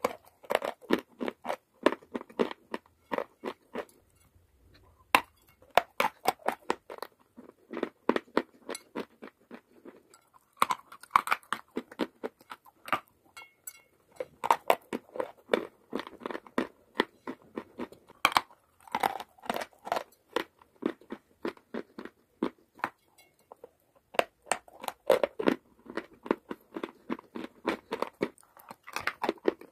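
Chalk and clay being bitten and chewed, crisp crunching in clusters of rapid cracks with brief pauses between bites.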